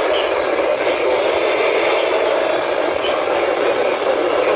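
Steady, loud radio static hiss from a weather radio receiver, filling the broadcast where the automated alert voice drops out.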